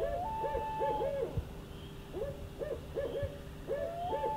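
An owl hooting in repeated calls: quick runs of short hoots that rise and fall, twice joined by a longer, higher steady note.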